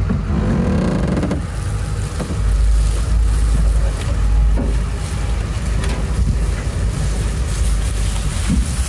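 Pickup truck engine rising in pitch briefly near the start, then running steadily under load as it tows a non-starting SUV forward on a rope.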